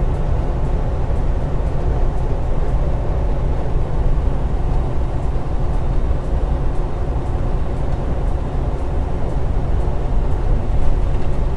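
Semi truck driving at steady speed: an even low drone of the diesel engine and tyre and road noise.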